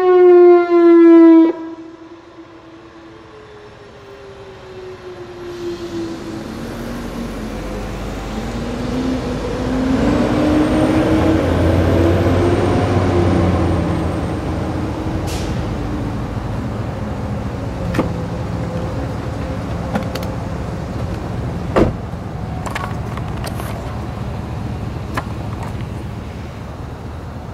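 Whelen Vortex R4 tornado siren sounding its falling tone as the test ends. It cuts off sharply about a second and a half in, and a faint falling tone fades out over the next few seconds. After that, road traffic: a vehicle passes, loudest about halfway through, with a couple of sharp clicks later on.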